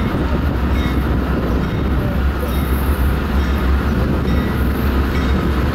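Four diesel-electric locomotives pulling a coal train as it approaches: a steady, deep engine rumble with the noise of the passing train over it.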